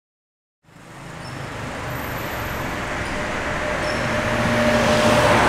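City traffic noise fading in from silence and swelling steadily, a distant even rush.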